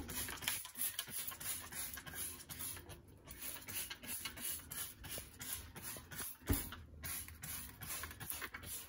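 Trigger spray bottle squeezed over and over, about three short hissing squirts a second, spraying onto a wooden cutting board in a stainless steel sink. There is a short pause twice, and a single knock about two-thirds of the way through.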